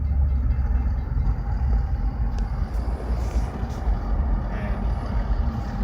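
Steady low rumble of a motor vehicle, engine and road noise, with no train horn sounding.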